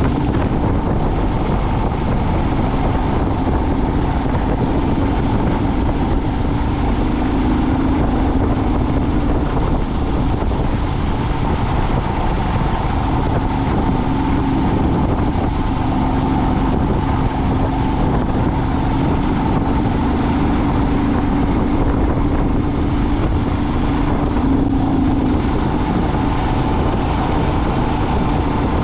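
Vehicle engine droning steadily on the move, with road and wind noise; the engine's pitch wavers a little without breaking off.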